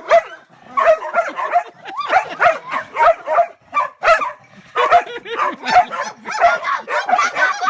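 Dog barking and yipping in rapid, excited bursts during rough play, with a short break about halfway through.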